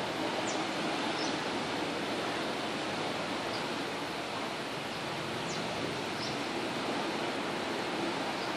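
Ocean surf washing steadily on the shore, with short high bird chirps heard several times over it.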